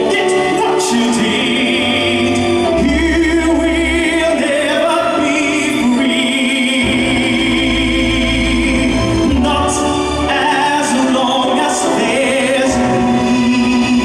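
A man singing a dramatic musical-theatre song into a microphone over recorded backing music, holding long notes with vibrato above deep bass notes from the accompaniment.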